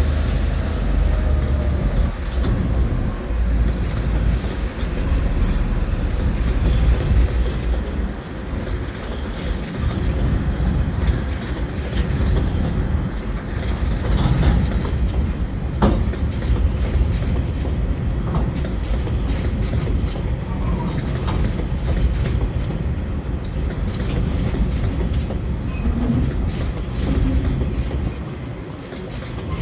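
Container wagons of a freight train rolling slowly past, wheels clacking over rail joints with some wheel squeal. A low rumble dies away in the first two seconds.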